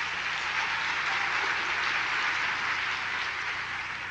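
A large audience applauding steadily, beginning to die away near the end.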